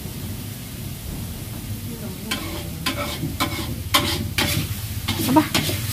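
Metal spatula scraping and clanking against a steel wok while stirring a spice paste frying over a wood fire, with a low sizzle underneath. The irregular scraping strokes start about two seconds in, a few each second.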